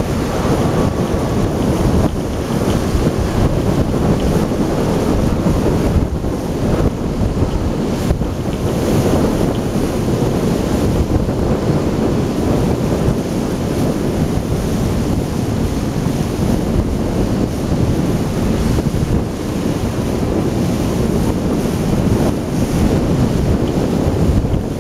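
Steady wind rumbling on the microphone from a ship's deck on the river: a loud, low rushing noise that never lets up.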